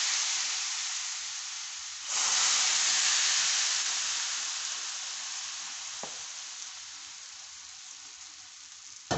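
Water sizzling and spitting as it is splashed into semolina roasted in hot ghee, a stage in making halwa where the water is added a little at a time. The sizzling flares up again about two seconds in, then slowly dies away.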